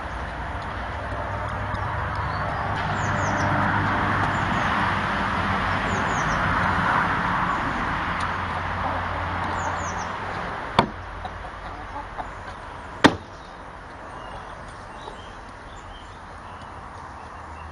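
Wooden treadle chicken feeder knocking sharply twice, about two seconds apart, as hens work its plank and lid. Underneath is a steady traffic rush that fades out about halfway through.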